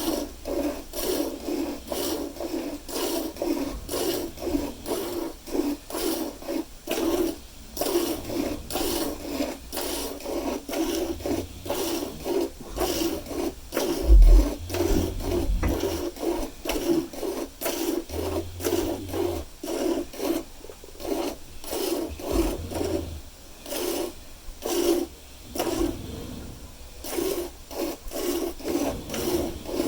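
Hand milking a cow: jets of milk squirting into a pail in an even rhythm of about two squirts a second. A low thump about 14 seconds in, with a few low rumbles around it.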